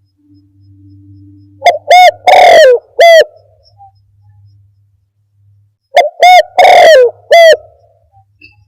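Spotted dove (tekukur) cooing, played as a bird-trapping lure call: two phrases of four coos each, short-short-long-short, about four seconds apart. The coos are loud and clipped, with a faint low hum between phrases.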